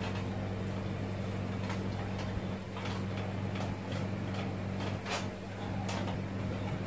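Short plastic clicks and knocks as a CRT TV's neck board is worked loose from the picture tube's socket, about eight or nine of them at uneven intervals, over a steady low hum.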